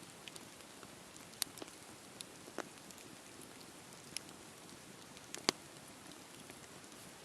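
Wood campfire burning: a low steady hiss with scattered sharp crackles and pops, the loudest about five and a half seconds in.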